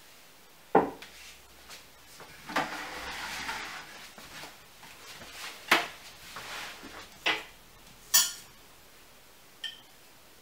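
Crockery and cutlery on a wooden table: several sharp knocks of plates and dishes being set down, and a short scrape about three seconds in. Near the end comes a small ringing clink of a fork on a ceramic plate.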